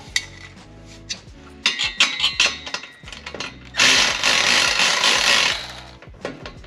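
Steel exhaust pipe sections clanking and ringing as they are worked into alignment under the car, with clicks and knocks and a few metallic clinks about two seconds in. The loudest event is a noisy rush lasting about a second and a half around the middle. Faint background music runs underneath.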